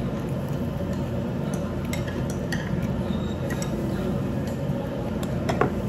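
Metal chopsticks clicking against each other and a dish as food is picked up and wrapped in lettuce, with one brighter ringing clink near the end, over a steady low hum.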